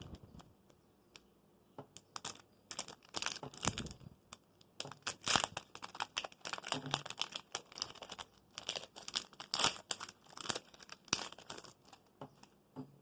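Foil wrapper of a Pokémon Hidden Fates booster pack crinkling and tearing as it is opened by hand, in quick irregular crackles that start about two seconds in.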